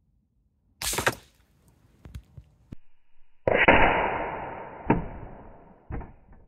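Shots from a .22 LR rimfire rifle striking a steel crow-shaped field target: a sharp crack about a second in, then the loudest shot with a long fading tail about halfway through as the target is knocked over, and a last sharp knock near the end.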